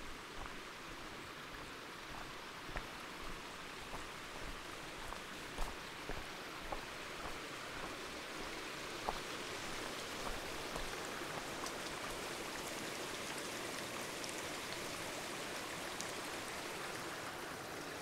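A small mountain creek running over rocks, getting steadily louder about halfway through as it is approached. Scattered footsteps crunch on loose scree, mostly in the first half.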